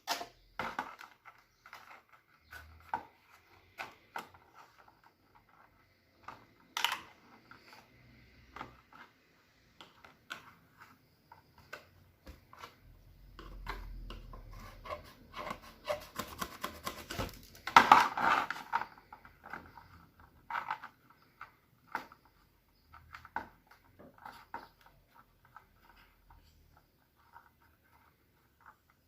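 Slime being squished and mixed by hand: scattered sticky clicks and crackles with soft rubbing, thickening into a denser, louder run of crackling a little past halfway.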